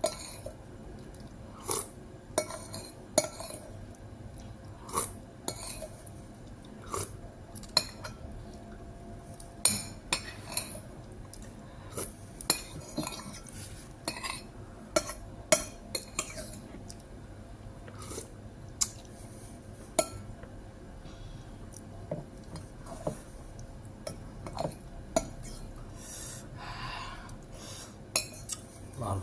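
Spoon clinking against a dish while someone eats: sharp, separate clinks at irregular intervals, a few every couple of seconds.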